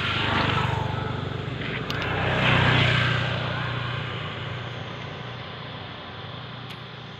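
A motor engine running with a steady low hum that swells twice and then slowly fades away.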